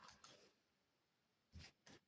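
Cloth wiping over a small desk object, a soft rubbing stroke that fades out about half a second in, then two short handling clicks near the end.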